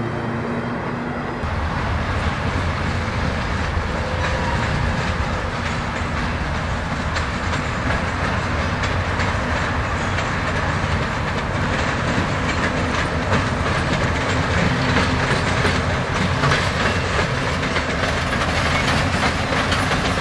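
Trains passing close by: a passenger train briefly, then, from about a second and a half in, a freight train of boxcars rolling past steadily, a low rumble with its wheels clicking over the rail joints.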